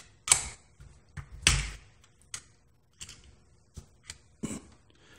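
A series of sharp plastic-and-metal clicks and knocks, with one heavier knock about a second and a half in, as a JBC soldering iron's handpiece is worked in the station's tip-changer slot: the old tip is pulled off and a fine tip pushed on.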